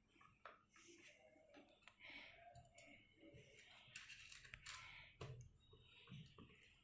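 Near silence, with faint scattered clicks and light scraping from a screwdriver turning screws into a plastic keyboard case as it is fastened back together.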